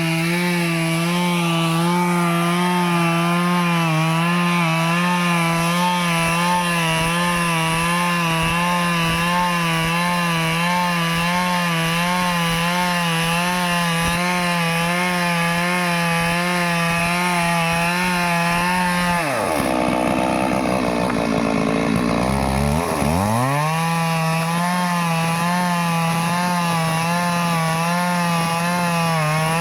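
Stihl chainsaw running at full throttle with a steady high-pitched engine note, cutting wood. About two-thirds of the way through, the engine drops sharply to a low, near-idle note, then revs back up to full speed.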